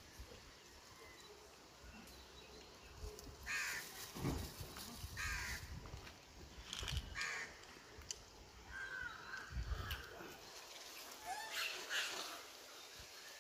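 Several short, harsh animal calls at intervals of a second or more, with a few soft knocks and rustles in between.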